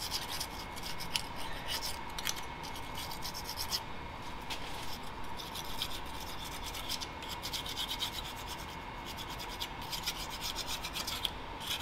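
Hand scraper rasping over the exhaust-port face of a Cat 3406E cylinder head, in quick, uneven strokes, scraping off old manifold gasket residue.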